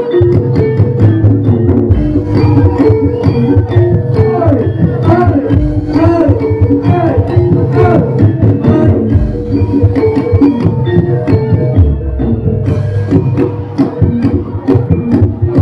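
Live jaranan dance music: a Javanese gamelan-style ensemble with drums beating a brisk, steady rhythm over held ringing tones, and a sliding melodic line a few seconds in.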